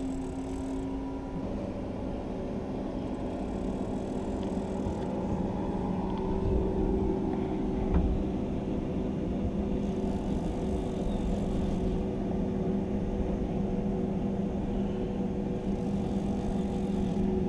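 Boat motor humming steadily at a constant pitch, with a single light knock about eight seconds in.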